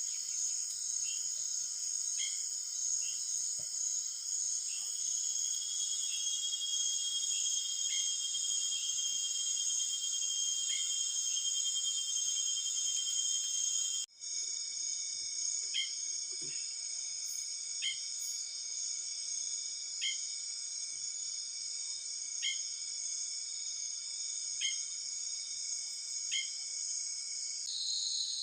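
Steady, high-pitched chorus of forest insects, with a short chirping call repeating about every second or two. There is a brief break about halfway through, after which the chorus goes on.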